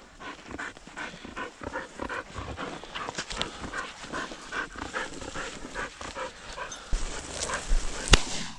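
Hunting dog panting fast, about four breaths a second. Near the end comes a single sharp crack of a shotgun shot.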